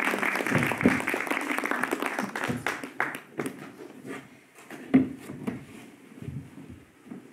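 Audience applauding, the clapping dying away over the first three seconds, followed by scattered knocks and shuffling on the stage, with a single sharp thump about five seconds in.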